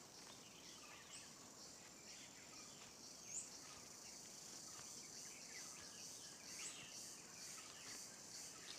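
Very faint natural ambience: a steady high insect trill with scattered short bird chirps.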